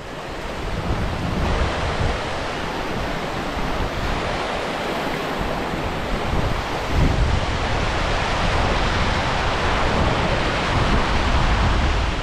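Steady rush of a rocky mountain stream running over stones, with wind rumbling on the microphone.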